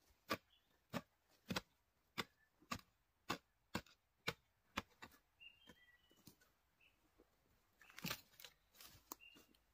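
A digging hoe chopping into a loose earth bank with a steady rhythm of sharp strikes, nearly two a second, for the first five seconds, then a louder cluster of strikes near the end.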